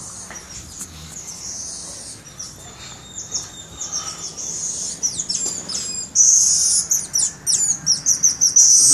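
Geoffroy's tamarin giving high-pitched chirping and twittering calls: faint at first, then from about six seconds in a loud run of quick, falling chirps.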